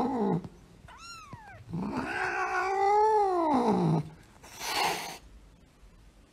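A short high mew, then a grey adult cat's long yowl that rises and falls for about two seconds, followed by a short hiss: the adult cat warning off the kitten in front of it.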